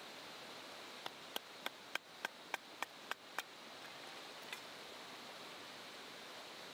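A quick run of about nine sharp ringing taps, roughly three a second, then one fainter tap, over a steady rush of flowing water.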